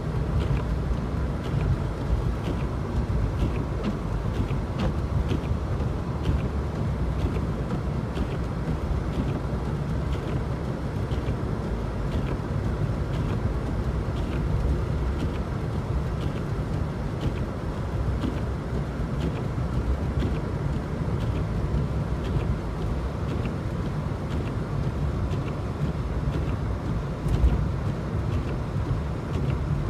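Car driving on a snowy, slushy road: a steady low rumble of road and engine noise. Light, regular ticks come about every two-thirds of a second, and there is one louder knock near the end.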